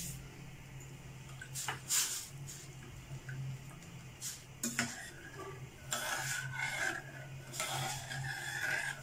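Steel ladle stirring sago pearls in water in a stainless steel pan: a few light clinks against the pan, then spells of scraping strokes across the bottom in the second half.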